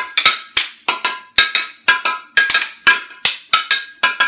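A glass beer bottle struck as a percussion instrument in a steady beat of about two to three hits a second, each hit ringing briefly with a glassy tone.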